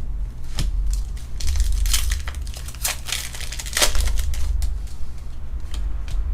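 Foil wrapper of a Pokémon trading card booster pack crinkling and tearing as the pack is handled and ripped open, in a run of sharp crackles that is loudest from about one and a half to four seconds in.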